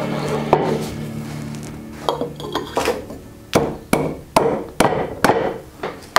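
Mallet blows knocking a joint of a wooden treadle-lathe frame together, a regular run of sharp knocks about two a second in the second half, over background music.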